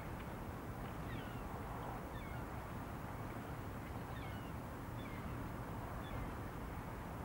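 Gulls calling: about eight short, thin cries, each a quick downward glide, scattered over several seconds above a steady low rumble.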